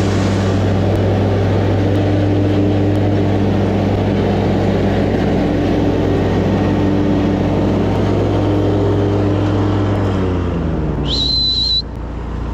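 Commercial lawn mower engine running steadily while mowing, its pitch dropping about ten seconds in as it throttles down. Near the end there is a short high whistle that rises and then holds steady before stopping abruptly.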